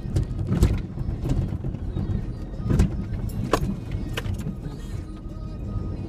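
2003 Ford Ranger 4x4 driving off-road: a steady low rumble of engine and tyres, with several sharp knocks and rattles over the rough ground.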